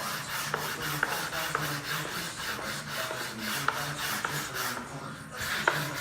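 Hand sanding of a curly maple inlay in a black walnut tabletop: sandpaper rubbed over the wood in quick, even back-and-forth strokes, with light clicks where strokes turn. There is a short pause about five seconds in, and then the strokes start again.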